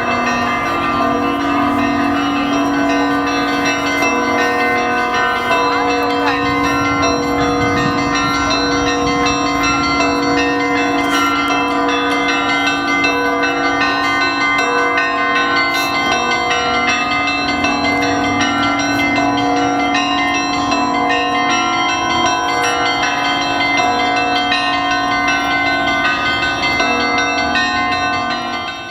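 Church bells of the Russian Orthodox Cathedral of Christ the Saviour in Kaliningrad ringing a full peal. Many bells of different pitches are struck in quick, overlapping succession, a continuous dense clangour.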